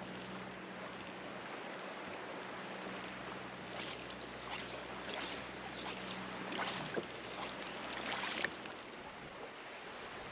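Water sloshing and splashing around a wading angler, with a run of soft swishes each under a second apart through the middle, over a steady outdoor wash.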